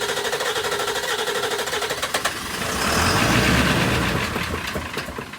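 Ford 7.3 Powerstroke V8 diesel cranking with a steady rhythmic pulse, then catching about three seconds in and running up louder before easing off. It is being started on ether while air is still being purged from newly replaced fuel lines.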